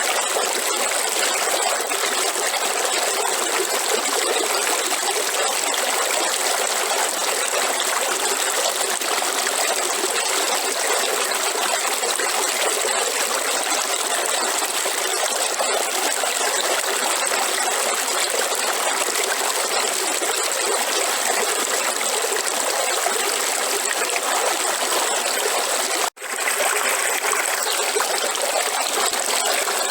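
River water flowing steadily, an even splashing rush that cuts out for an instant about 26 seconds in before resuming.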